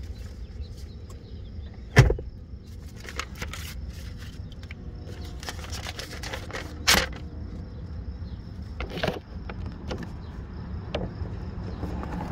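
Inside a Subaru car: a steady low rumble with two loud knocks, about two seconds in and about seven seconds in, and lighter clicks, as the driver handles things in the cabin and opens the door near the end.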